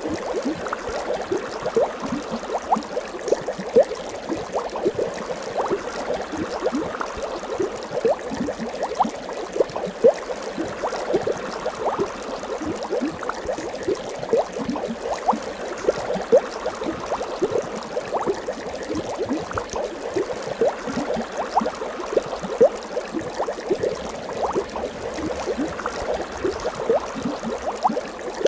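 Continuous underwater bubbling sound effect: a dense, steady stream of small bubbles popping and gurgling, many short rising blips a second.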